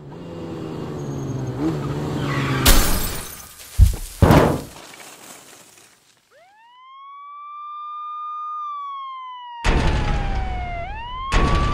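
Crash sound montage: a vehicle engine revving up, then a loud crash with two more sharp impacts. After a brief quiet, a siren wails up, holds and falls, then rises again under loud bursts of rushing noise near the end.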